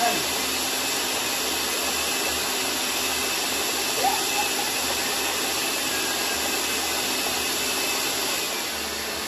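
Countertop blender motor running steadily, blending fruit for a smoothie; the sound eases off slightly near the end.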